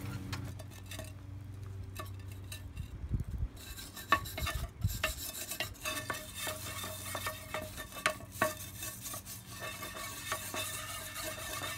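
Wire brush scraping rust off a hot Wagner cast iron pan in quick, irregular metallic strokes. It starts about four seconds in, after a few soft knocks as the pan is moved out of the fire with a metal poker.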